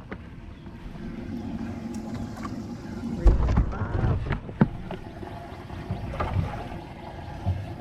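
Boat motor running steadily with a low hum, with a few sharp knocks about three and four and a half seconds in.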